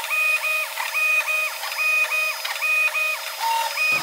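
Type A Machines Series 1 Pro 3D printer's stepper motors whining through a quick series of short moves, about two or three a second, each rising in and falling away, as the print head steps across the bed probing a grid of points for auto bed leveling. A steady hum runs underneath.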